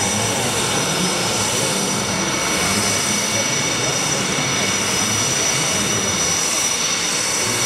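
A KAI T-50B jet's General Electric F404 turbofan running steadily at ground idle: a constant rushing noise with a high whine held on several fixed pitches.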